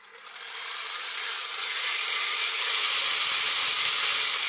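Kyosho Trail King RC snow vehicle's electric drive motors spinning both plastic tracks under remote control, a steady mechanical whir and rattle. It builds over the first second, then holds steady.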